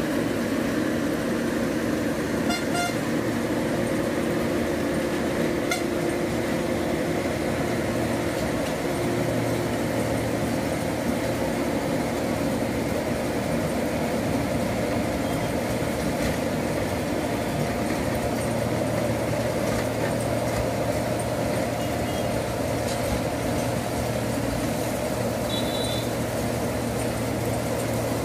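Heavy engines of road-building machinery running steadily: a constant drone with several steady pitched tones, and two sharp clicks within the first six seconds.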